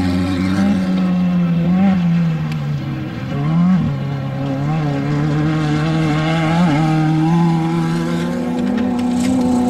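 Off-road desert race vehicle's engine running hard, its pitch rising and falling with the throttle, with a quick rev-up and sharp drop a little past three seconds in.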